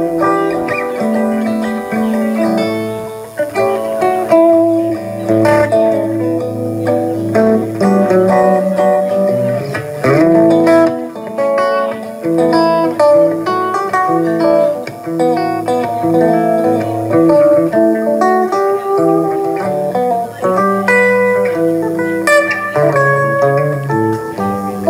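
Two electric guitars playing an instrumental jam, one holding low notes under the other's picked lead lines, with a rising slide about ten seconds in.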